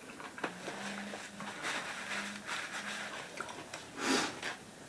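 Quiet sounds of people eating at a table: chewing and handling food, with one short, louder noise about four seconds in.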